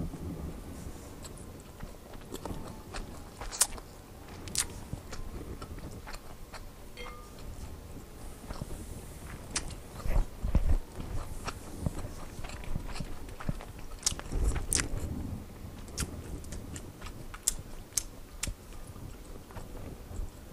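Close-miked chewing of inari sushi, the rice in a soft fried tofu pouch, with many wet mouth clicks and smacks scattered throughout and a few duller knocks.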